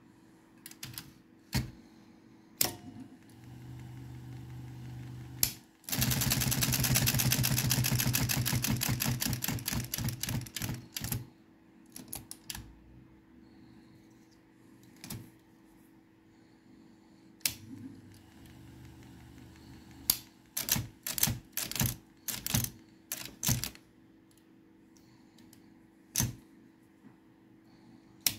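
Olympia electric typewriter's mechanism. A brief motor hum is followed, about six seconds in, by a fast run of clicks that slows and fades over about five seconds as the motor coasts down. Later come scattered single clicks and a quick series of clicks as the linkage is worked by hand.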